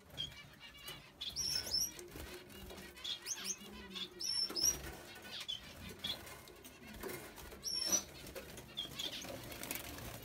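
Caged Gouldian finches fluttering about on their perches, wings flapping, with scattered short high chirps and calls.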